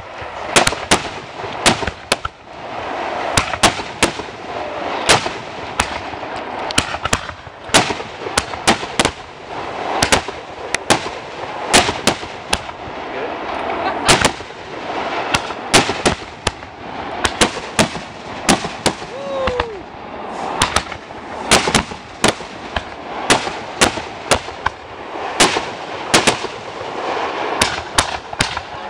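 Aerial fireworks bursting in a rapid, irregular barrage of sharp bangs, often several a second, with no let-up.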